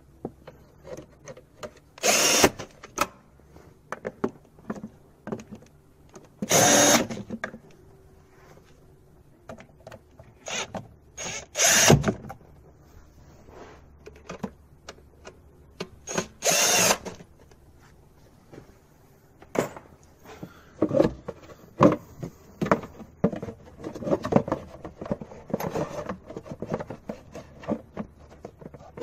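Four short bursts of a power tool, each about half a second and a few seconds apart, as engine-bay parts are fastened back on. They are followed by a quick string of clicks and knocks from parts and tools being handled.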